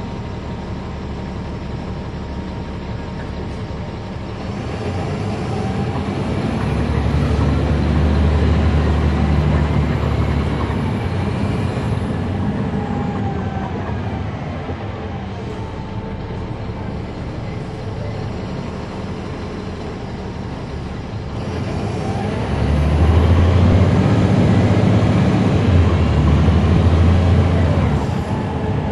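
Caterpillar C13 ACERT diesel engine of a NABI 40-SFW transit bus with a ZF Ecomat automatic transmission, heard from on board. The bus pulls away twice, each time getting louder with a rising engine note for several seconds, and between the pulls it runs quieter.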